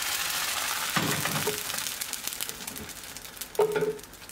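Thin carrot pancake batter sizzling in a hot, oiled non-stick frying pan as the pan is swirled and set back on the gas burner, the crackle slowly fading. A clunk comes about a second in, and a short, loud knock with a brief ring near the end.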